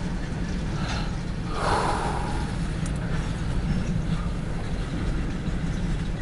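Freight train's diesel locomotives running with a steady low rumble, a short hiss about a second and a half in.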